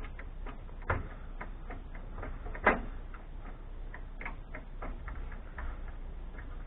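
Irregular small clicks and light metal taps of a screwdriver working out the screws that hold the transformer in a scrap amplifier's chassis, with two louder knocks about one second and nearly three seconds in.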